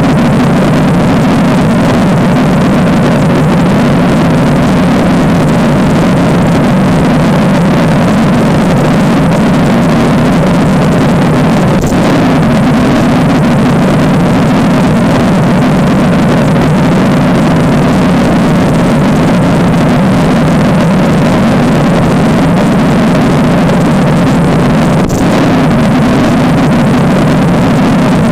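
Loud, steady, unchanging low drone, with a faint click about twelve seconds in and again near the end.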